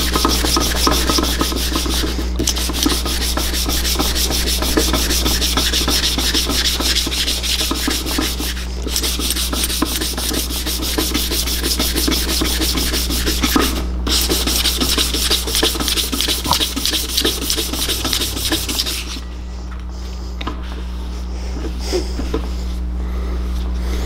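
Hand sanding with 320-grit sandpaper in quick back-and-forth strokes over a Honda CBX's aluminium engine side cover, with a few brief pauses. The rubbing stops about 19 seconds in.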